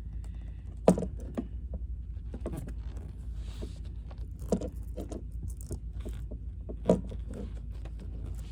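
Small clicks, taps and rattles of hand-handling wires and a screwdriver on the back of a boat's shore power outlet while the wires are worked into its terminals. A few sharper knocks come about one second, four and a half and seven seconds in, over a steady low rumble.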